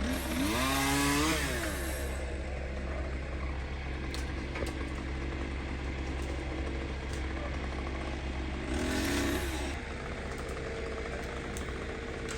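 A chainsaw revs up and drops back twice, once at the start and once about nine seconds in, over the steady low running of heavy equipment's engine.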